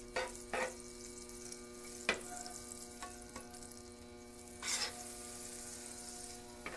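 Butter sizzling in oil on a preheated flat-top griddle: a steady faint hiss, with a few light knocks. A steady electrical hum runs underneath.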